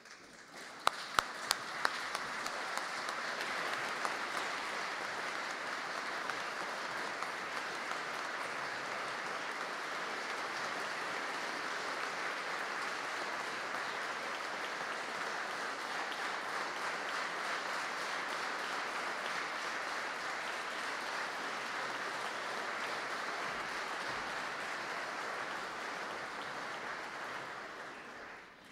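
Audience applauding steadily, with a few sharp single claps standing out as it begins about a second in, then dying away near the end.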